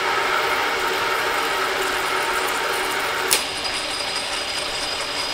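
Metal lathe running under power with its gear train turning while a single-point threading tool cuts a thread, giving a steady noisy cutting sound. About three seconds in there is a single sharp click and the cutting sound stops: the spring-loaded auto-retract threading tool trips at the shoulder and pulls the cutter out of the thread. The lathe keeps running afterwards.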